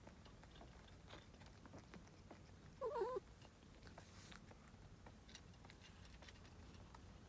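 A newborn kitten gives one short, wavering mew about three seconds in, over faint small clicks and rustles from the nursing litter.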